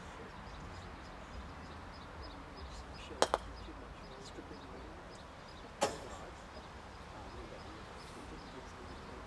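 Croquet mallet striking a ball, followed a split second later by a second sharp clack as ball hits ball, knocking the opponent's ball away; another single sharp clack comes about two and a half seconds later.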